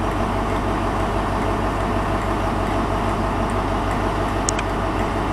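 Diesel engine of a GWR Class 43 HST power car idling steadily at a standstill, a constant low rumble with a faint steady hum above it.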